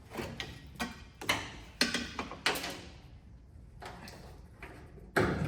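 Irregular clicks and knocks of hard parts and tools being handled, about eight in all, with the loudest knock about five seconds in.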